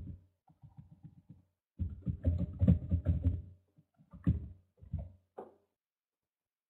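An indistinct person's voice in several short bursts, the loudest about two to three and a half seconds in, passed through online-class audio.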